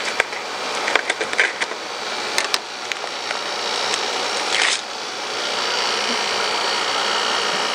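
Gloved hands pulling a strip of Parafilm laboratory film from its dispenser box: small clicks and crinkles of the film and box, then a short tearing rasp about four and a half seconds in as the strip comes free, over a steady hiss that grows louder.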